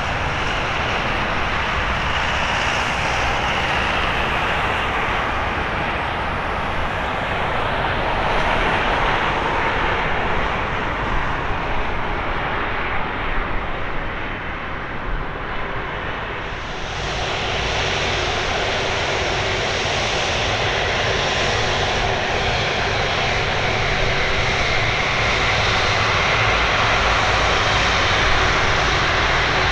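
Airbus A330-300's Rolls-Royce Trent 700 turbofan engines running as the airliner rolls down the runway after landing. The sound grows louder and brighter about 17 seconds in as the aircraft passes close by.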